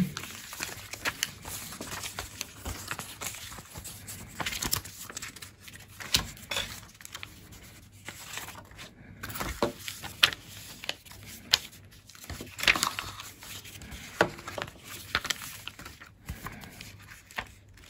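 Paper leaflets being unfolded and leafed through by hand, rustling and crinkling in short, irregular bursts with a few sharper crackles among them.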